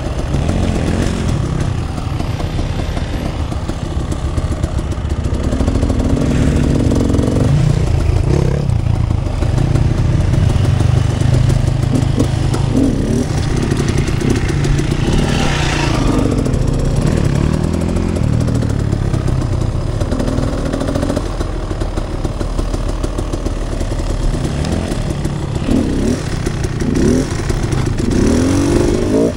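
Enduro dirt bike engine running while ridden at low speed, heard from on the bike, with the revs rising briefly several times as the throttle is blipped, most often near the end.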